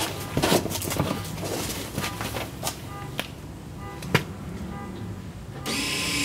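Electric motorized 4WD front-axle actuator running briefly near the end, a short whir of about half a second as it engages the front axle, showing the actuator works. Before it come a few sharp clicks and faint short high tones that repeat evenly.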